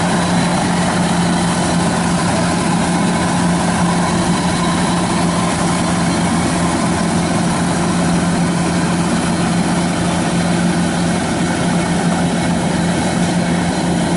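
Kubota DC-93 combine harvester's diesel engine running steadily at working speed while harvesting rice. It makes a constant loud drone with a deep, even hum and the noise of the threshing machinery, without change.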